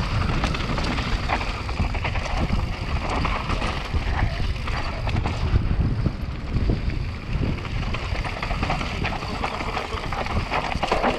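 Mountain bike descending fast over loose dusty gravel and rock: tyres crunching and the bike rattling and knocking over the bumps, under wind rushing across the camera's microphone.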